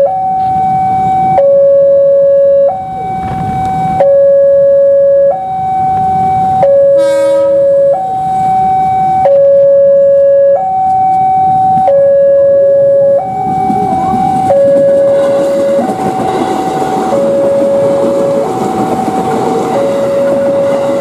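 Railway level-crossing alarm sounding two alternating tones, each held about a second and a half, without a break. A short train horn blast comes about seven seconds in, and from about fourteen seconds the rumble and wheel noise of a JR 205-series KRL commuter electric train passing close by rises under the alarm.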